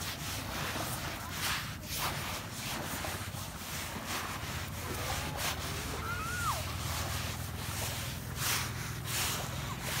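Steady rushing noise of wind and surf at the beach, swelling every second or so, with a short high gliding whistle about six seconds in.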